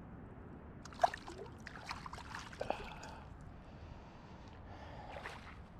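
Faint splashing and sloshing of shallow creek water, with a cluster of light clicks and splashes between about one and three seconds in.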